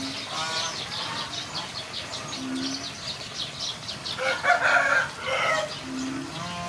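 A rooster crowing about four seconds in, among shorter chicken calls, with a run of high chirping throughout.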